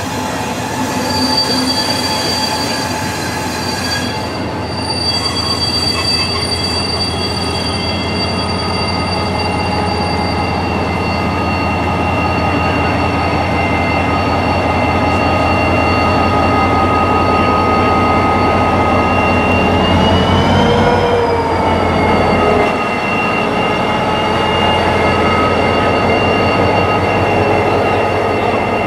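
Slow-moving Irish Rail 071 class diesel-hauled train passing close by, with a steady high squeal of several tones from the coaches' steel wheels; the squeal rises briefly in pitch about two-thirds of the way through. Under it, the locomotive's EMD 12-cylinder two-stroke diesel throbs, growing louder as the engine draws alongside.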